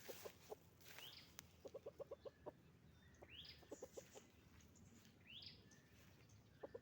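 Chickens clucking: quick runs of short clucks, about six in a row near two seconds in and again near four seconds, with short rising squawk-like calls repeating every two seconds or so.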